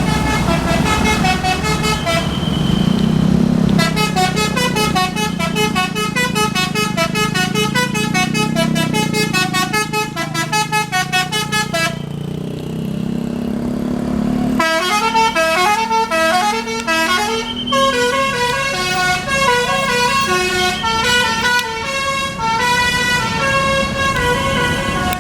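Bus telolet horn, a multi-tone musical horn, playing fast runs of short notes that step up and down in a tune, stopping for a couple of seconds about twelve seconds in and then starting again. A low engine hum runs underneath.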